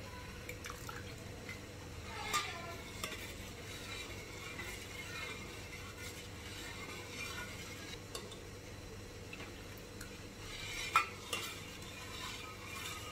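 Steel spoon stirring hot milk in a steel bowl, with a few light clinks of spoon against metal, about two seconds in and again near eleven seconds. Lemon juice is being added to curdle the milk into chhena.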